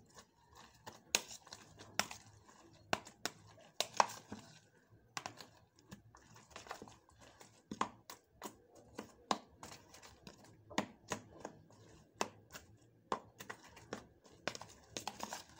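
Metal spoon stirring chopped tomatoes, onions and peppers in a plastic bowl: irregular clicks and scrapes of the spoon against the bowl's sides.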